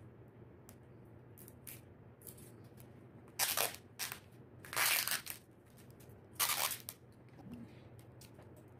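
Stiff black and gold bouquet wrapping paper crinkling and rustling as it is folded and handled, in four loud bursts from about three and a half to seven seconds in, with faint small handling clicks between.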